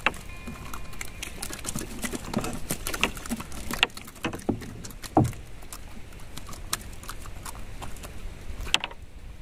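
Irregular knocks, taps and clicks against a wooden boat as a freshly caught fish is taken off the hook and the fishing line handled, with one heavier thud about five seconds in.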